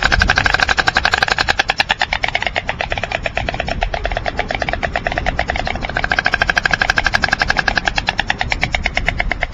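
White storks clattering their bills: a rapid, even wooden rattle of about ten strokes a second, louder at the start and swelling again about six seconds in.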